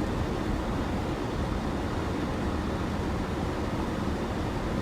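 Steady in-cabin noise of a car driving slowly through deep snow: engine, tyres in the snow and the defroster fan, with no distinct events.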